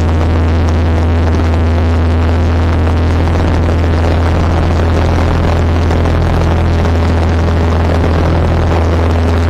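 Pegazair floatplane's 150 hp piston engine and propeller running at low, steady taxi power on the water, a loud unbroken throbbing drone with a strong low hum.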